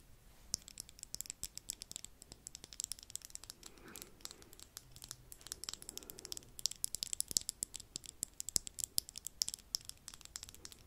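Cheap makeup brush swept over a furry microphone windscreen: a dense, crackly scratching of bristles on fur, close to the microphone, growing louder in the second half.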